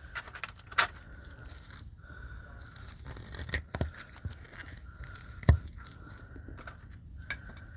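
Pliers cutting and trimming the excess of a rubber tire-repair plug: scattered sharp clicks and snips, the loudest about a second in and again about five and a half seconds in.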